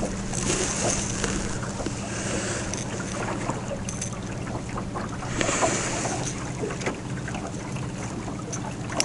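Wind on the microphone and the wash of water, with a steady low hum; the wind gusts up about half a second in and again about five seconds in.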